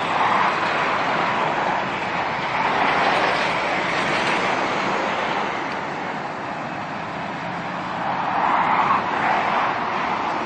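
Motorway traffic: vehicles passing in swells of tyre and engine noise, the loudest about eight to nine seconds in.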